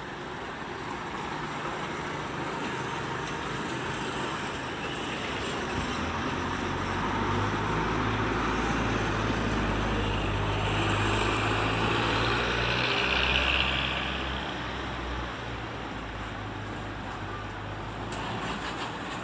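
Street traffic noise, with a motor vehicle's engine running close by. Its low hum comes in about a third of the way through, grows loudest about two-thirds through, then drops back to the general traffic hum.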